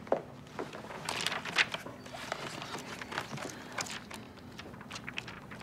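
A few footsteps, then the rustle and flap of a glossy magazine's pages being handled and flipped, in irregular short crackles.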